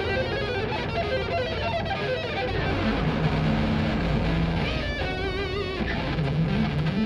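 Solo electric guitar played live: a run of single pitched notes, with a fast wavering vibrato on a held high note about five seconds in.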